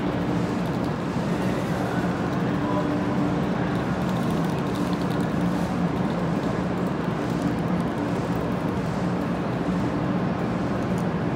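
500 series Shinkansen standing at the platform, its onboard equipment giving a steady hum and whir with a constant low drone.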